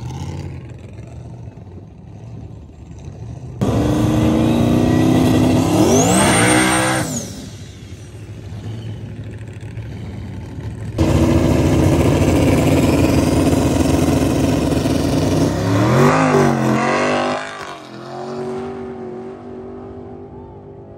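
Drag car engine revving hard at the starting line, rising in pitch and then dropping back. A car then launches at full throttle and runs down the strip, its engine note climbing before it fades away near the end.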